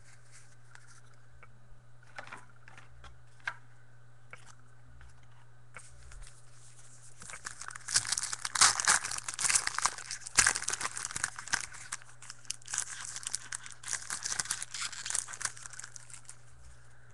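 A trading-card pack wrapper being torn open and crinkled: a few scattered small clicks, then from about seven seconds in a dense run of tearing and crumpling that lasts most of the rest. A steady low hum sits underneath.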